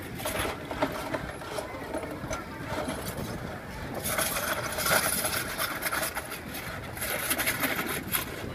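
Street noise of motor traffic running and passing, with short clicks and knocks through it.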